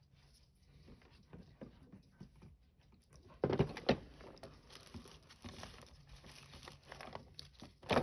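Small handling noises at a watch repair bench: light scratching and crinkling, with a louder rustle about three and a half seconds in and a sharp click near the end.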